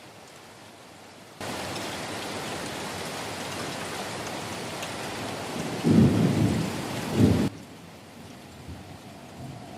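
Rain falling steadily, turning suddenly heavier about a second and a half in, with a low rumble of thunder about six seconds in. The heavy rain cuts off abruptly after about seven and a half seconds, leaving lighter rain.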